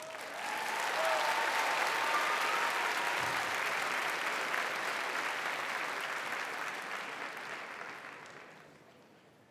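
Audience applauding, building up over the first second and dying away near the end.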